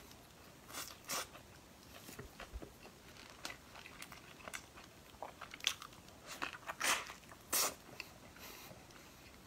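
A person biting into and chewing a flatbread wrap stuffed with duck meat: irregular crunches and mouth clicks, with a few louder bites between about five and eight seconds in.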